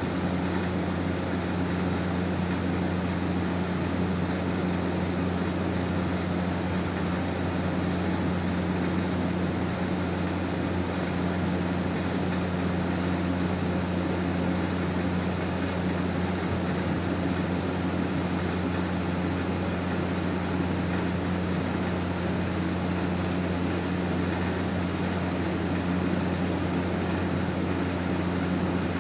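A steady low mechanical hum over an even background hiss, unchanging throughout.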